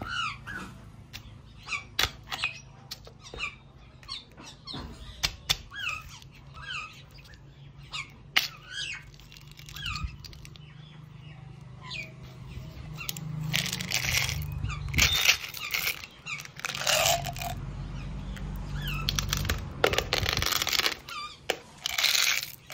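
A run of short high squeaks and light clicks, then, from about halfway, the clatter and rattle of small candy-coated chocolate balls shaken and poured out of a plastic bottle.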